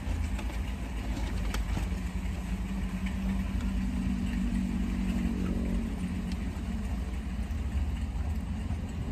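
Steady low hum of a car's engine idling, heard from inside the cabin, with a few faint crunches of tortilla chips being eaten.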